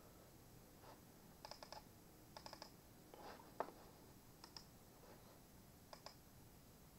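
Faint computer mouse clicks, several coming as quick double-clicks, with one louder click or tap about three and a half seconds in.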